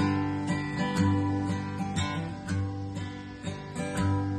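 Acoustic guitar strummed in a steady rhythm, playing the opening chords of a song.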